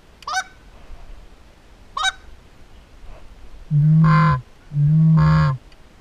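Goose honking: two short rising honks about two seconds apart, then two long, loud, low honks near the end.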